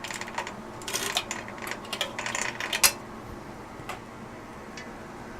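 Steel bicycle chain (a KMC X8.93) clinking and rattling as its links are handled, with a run of quick metallic clicks in the first three seconds and only a few after.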